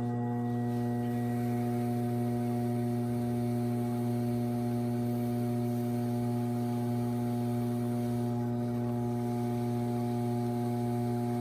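Electric potter's wheel motor humming steadily while it spins at speed.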